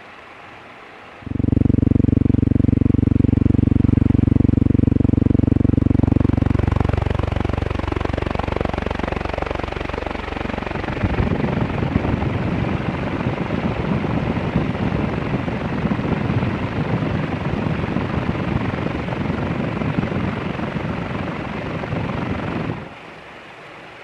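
Leslie Locke DF-361 ceiling fan heard up close: a loud, steady electric-motor hum for the first few seconds, then a rough, fluttering rumble of air from the spinning blades. It starts suddenly about a second in and cuts off near the end.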